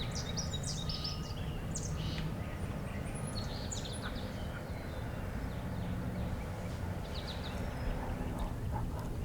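Small songbirds chirping and giving short trills in the spring woods, over a steady low rumble of background noise.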